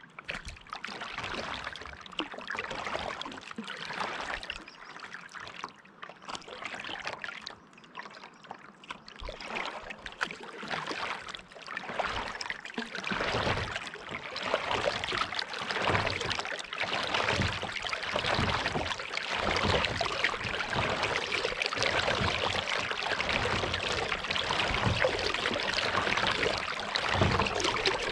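Kayak paddle strokes in lake water: splashing and trickling as the blades dip and drip, in repeated swells that grow louder about halfway through, with low thuds in the later strokes.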